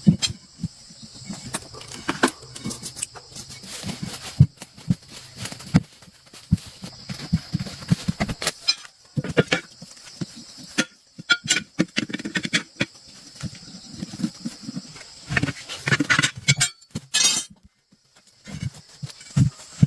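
Irregular knocks and clatters, some in quick runs, over a steady high hiss; they stop briefly near the end.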